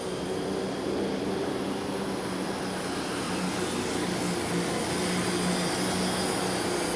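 John Deere Pro Stock pulling tractor's turbocharged diesel engine running at full power through a pull, steady throughout, with a high whine above the engine note.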